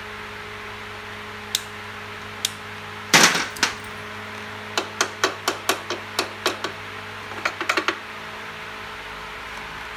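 Small hammer tapping on metal at a motorcycle's rear brake torque-arm bolt, setting a new split pin: a run of about ten light taps, roughly five a second, then a quicker cluster. Before it comes a loud metallic clatter of tools being handled, over a steady workshop hum.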